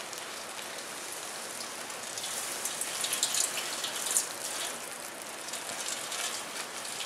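Garden hose spraying water onto burning magnesium shavings in a galvanized steel tub: a steady hiss of spray and steam, with sharp crackles and pops that thicken in the middle, the sign of the hot metal fire resisting being put out.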